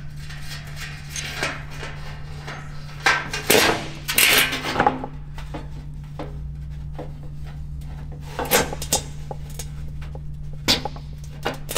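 An arrow and its steel broadhead being worked loose from a hole punched in a 17-gauge steel plate: metal scraping, rattling and clinking. The loudest burst of scraping and rattling comes about three to five seconds in, followed by scattered single clicks.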